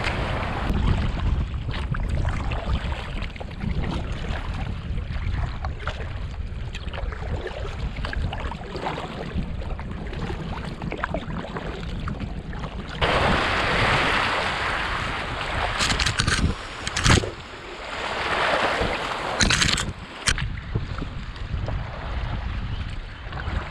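Wind rumbling on the microphone over river water rushing around a paddled inflatable kayak. The hiss gets louder about halfway through, and a few sharp knocks follow a little later.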